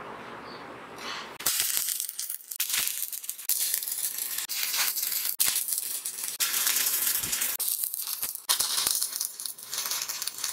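Stick (arc) welding on mild steel plate: the electrode arc crackles and sizzles in a series of bursts of one to two seconds, broken by short gaps as the arc is stopped and struck again for short tack welds.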